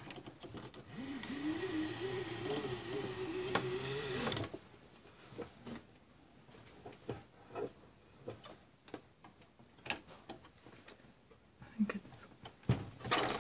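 Silhouette cutting machine's tool carriage being pushed along its rail by hand, the drive belt and motor whirring with an uneven, wavering pitch for about four seconds. After that come small clicks and rustles of fingers pressing the new cutting strip into place, with one sharper click near the end.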